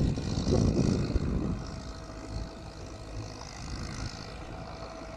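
Ford tractor's engine running steadily under load as it drags a leveling implement through a wet paddy field, a low rumble that is louder in the first second and a half and then settles to an even drone.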